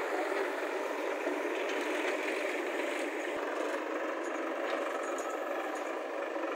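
Diesel engines of a farm tractor and a JCB backhoe loader running steadily.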